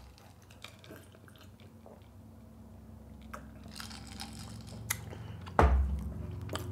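Close-miked drinking from a glass of ice water: small gulps and clicks, with ice in the glass. About five and a half seconds in, a heavy thump as the glass is set down on the wooden board.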